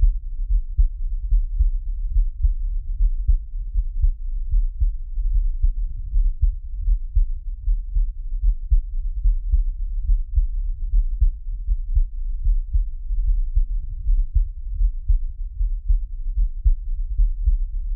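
Fast, loud heartbeat sound effect: a steady, quick rhythm of deep, low thumps with nothing in the high end.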